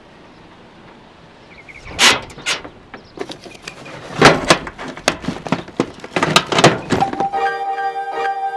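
Jumper cables and gear being shifted around inside an aluminium diamond-plate truck toolbox: a series of sharp knocks and clunks of metal on metal, starting about two seconds in. Keyboard music comes in near the end.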